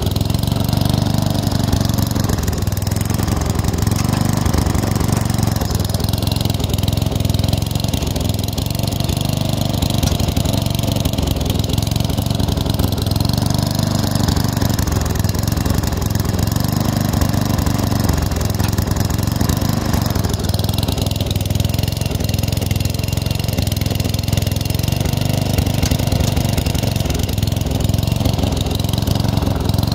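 Lawn tractor engine running steadily under load as the tractor pulls brush out with a tow strap.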